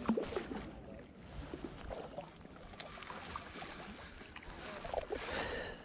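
Kayak paddle strokes: the blade dipping into lake water with splashing and dripping, a sharp splash at the start and a longer one about five seconds in.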